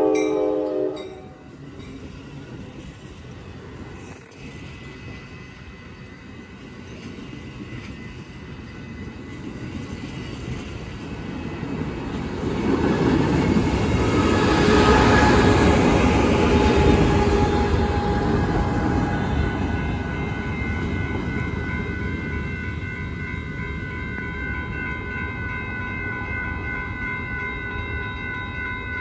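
An Amtrak passenger train's horn blast ends, and the train then passes close by. Its diesel locomotive and the wheels on the rails grow loud, peak about halfway through and slowly fade. In the last third a level crossing's warning bells ring steadily.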